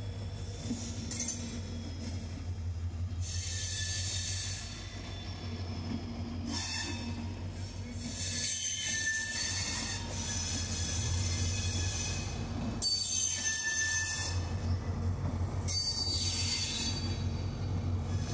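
Duranto Express's LHB passenger coaches rolling past at departure speed: a steady low rumble of wheels on rail, with high-pitched wheel squeal coming and going several times. It grows louder over the second half as the coaches pass close by.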